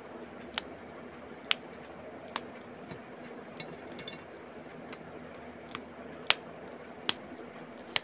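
Yardlong beans being snapped into short pieces by hand: about eight sharp, crisp snaps, roughly one a second.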